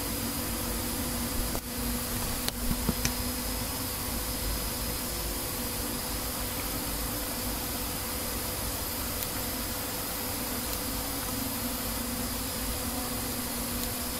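Steady electrical hum and hiss, like a computer's fan and background noise picked up by the recording microphone, with a few short clicks about two to three seconds in.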